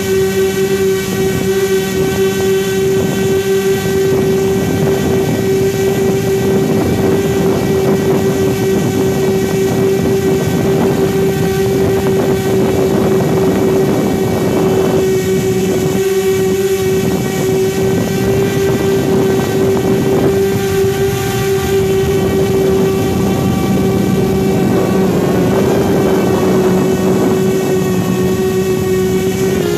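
Quadcopter's electric motors and propellers droning steadily in flight, heard up close from a phone mounted beneath it, with one strong held pitch over a rushing noise. The motors are working hard to carry the heavy phone payload.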